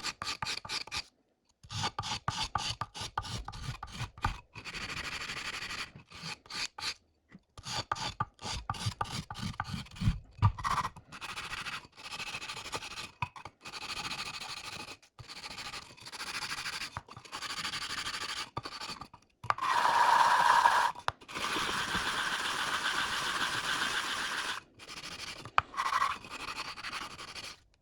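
Cast fiberglass part being wet-sanded by hand with a 120-grit drywall sanding screen: quick back-and-forth scrubbing strokes in short runs that break off abruptly, loudest about twenty seconds in.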